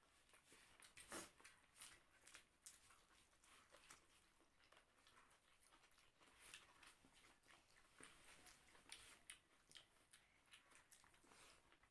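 Faint chewing and smacking mouth sounds of eating, with scattered small irregular clicks.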